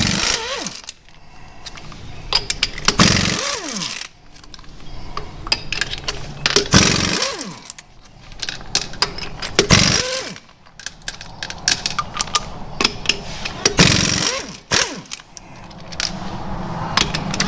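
Pneumatic impact wrench hammering lug nuts off a wheel in short bursts, about every three to four seconds, its air motor winding down in a falling whine after each burst. Light metallic clicks of the socket and loosened nuts come between the bursts.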